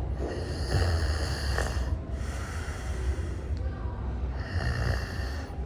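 A person snoring: about three long snores in a row, cutting off suddenly near the end.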